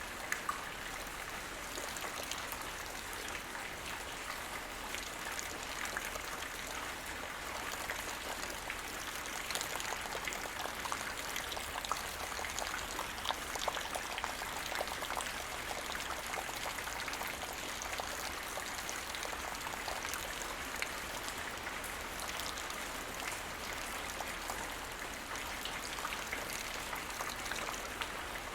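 Light rain falling steadily, drops pattering on the ground with many small sharp ticks.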